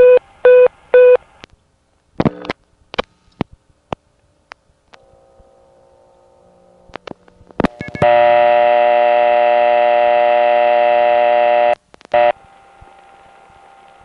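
Old tape recording of a payphone line. A run of quick beeps comes first, then handset and switch clicks. About eight seconds in, a loud buzzy crossbar No. 1 dial tone sounds for about four seconds, cut off by clicks, and leaves a faint steady tone on the line.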